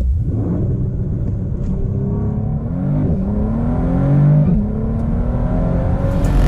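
2018 Bentley Continental GT's twin-turbo W12 engine pulling hard under full acceleration, its pitch climbing through the revs and dropping sharply twice at quick gear upshifts.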